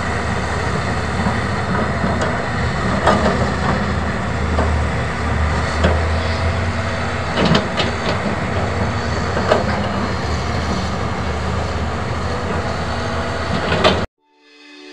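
Caterpillar 320D excavator's diesel engine running steadily under load as it digs, with a deep hum and a few sharp clanks. It cuts off abruptly near the end.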